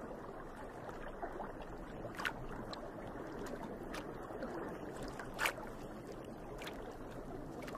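Water lapping and sloshing steadily, with a few brief sharp splashes, the clearest about two seconds in and about five and a half seconds in.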